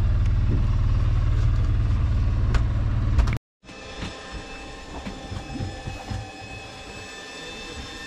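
Fishing boat's engine running with a loud, steady low rumble; after a sudden cut about three and a half seconds in, a quieter steady drone with a high whine carries on.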